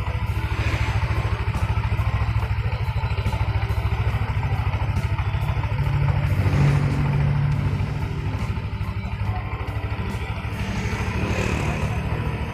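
Yamaha NMAX scooter's single-cylinder engine running with a rough, harsh sound, the symptom the owner hears when starting it in the morning. It picks up briefly about halfway through and again near the end.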